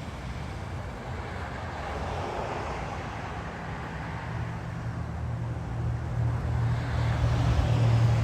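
Motor vehicle traffic: a steady low engine rumble with road noise that grows louder toward the end, as a vehicle draws near.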